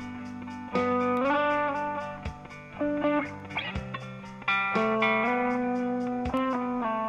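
Ibanez SEW761FM seven-string electric guitar, played through an amp, improvising held notes and chords over a loop from a Boss RC-20 loop station. New notes are struck roughly every second and let ring.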